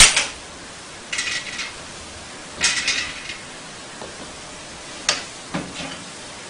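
Model hoops being popped out of the slots on their arms: a sharp snap, then a few short bursts of light clattering and rattling as the hoops are pulled free and handled.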